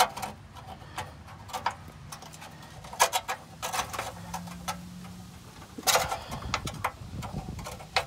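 Sharp metallic clicks and taps from a loose exhaust heat shield and a metal shim being handled, loudest about three and six seconds in. A faint low hum runs underneath.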